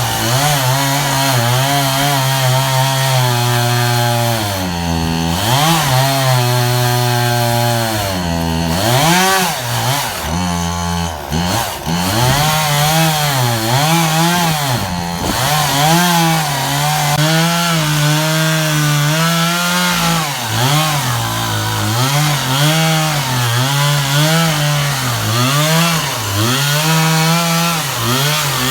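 Sears Craftsman chainsaw running steadily while cutting wood, its pitch dipping and rising again and again as the chain bites in and frees up.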